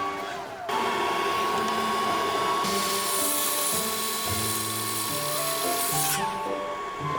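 A power tool running, starting about a second in, getting louder and harsher about halfway through, and stopping near the end, over background music with a slow melody.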